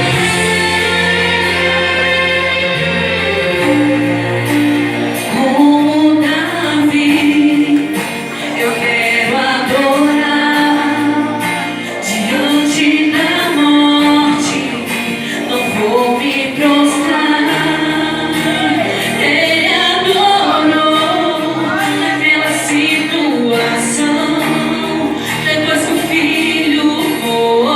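Two women singing a gospel song in Portuguese over an instrumental backing with sustained bass notes.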